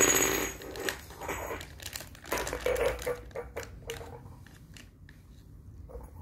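Small plastic zip-lock bag crinkling and crackling as it is handled in the hands, with bursts of crackle in the first three seconds that die down after about four and a half seconds.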